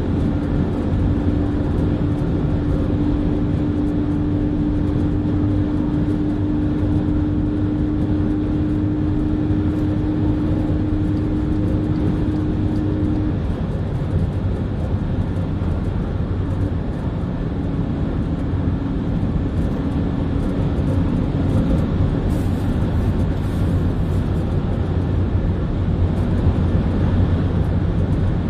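Steady road noise inside a car cabin at motorway speed: tyre and wind noise over a low engine drone. A steady hum sits on top and stops about halfway through, then comes back faintly for a few seconds.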